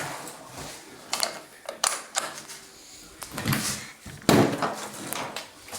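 A series of about five short knocks and creaks, irregularly spaced; the loudest comes about four seconds in.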